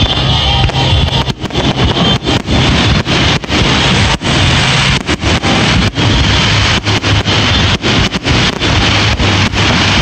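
Fireworks finale barrage: many shells bursting in quick succession, merging into a continuous loud rumble. The audio is overloaded and distorted by the volume.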